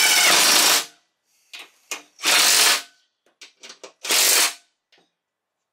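Cordless driver with a socket running in three short bursts, each under a second, snugging self-tapping bolts into the aluminium spindle housing of a mower deck, with light clicks of tool and bolts in between.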